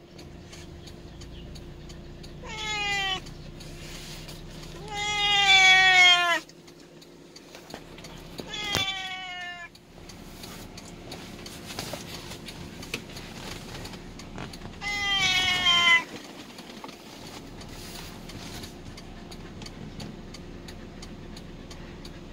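Black cat meowing four times, each call sliding down in pitch, the second one the longest and loudest. A steady low hum of the car cabin runs underneath.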